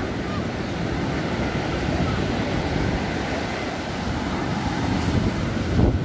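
Storm surf breaking on a sandy beach: a steady, dense wash of waves, with wind buffeting the microphone. It swells louder near the end.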